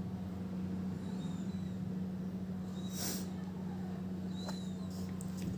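A steady low electrical hum runs throughout. Faint high bird chirps come a few times, and one short breathy sniff comes about three seconds in.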